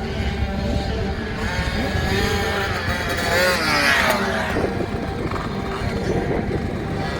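Husqvarna TC50 single-cylinder two-stroke kids' dirt bike engine revving. The pitch climbs to a peak about four seconds in, then drops back.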